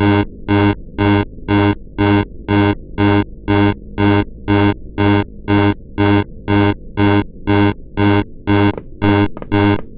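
Electronic alarm buzzer sounding in harsh, evenly spaced pulses, about two a second.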